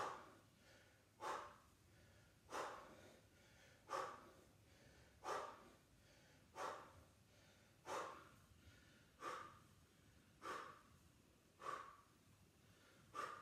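A man breathing out hard with each toe-tap crunch: short, even puffs of breath about every 1.3 seconds.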